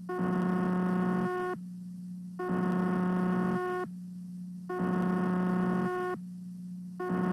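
A low electrical hum runs steadily underneath, and a harsher buzz switches on over it for about a second at a time, four times, in a slow, even on-off rhythm.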